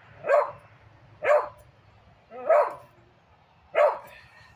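Feist dog barking treed at a raccoon it has run up a tree: four short barks about a second apart.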